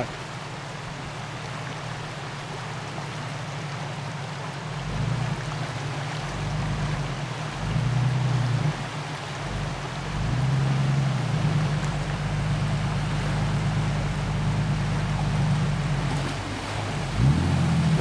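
Jeep Cherokee XJ engine running and revving in swells as the Jeep reverses through a fast river, over the steady rush of the water. The engine grows louder about a third of the way in.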